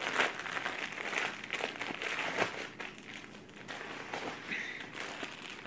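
Clear plastic wrapping crinkling and crackling in irregular bursts as it is torn and pulled open by hand.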